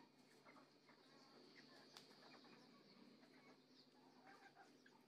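Near silence, with faint scattered bird chirps and one faint click about two seconds in.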